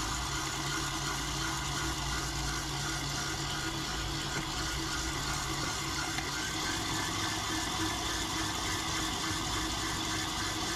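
Electric mixer running steadily, its whisk beating egg yolks and sugar together in a bowl until light and creamy.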